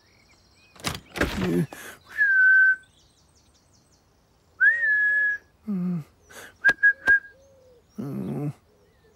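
A man whistling to call his cat: two long whistles, the first gliding down and the second rising then held, followed by short voiced calls and a few sharp clicks with quick whistle chirps. A door opens with a clatter about a second in.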